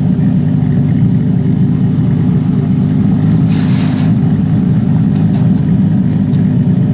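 Aston Martin One-77's 7.3-litre V12 idling steadily while the car stands still, with no revving.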